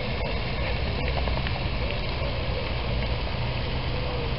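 Steady hiss of a pond fountain's spray falling back onto the water, with a low rumble underneath.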